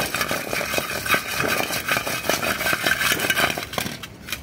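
Roasted litti balls rattling and scraping around an aluminium bowl as the bowl is shaken to coat them in ghee: a dense, continuous clatter that stops about four seconds in.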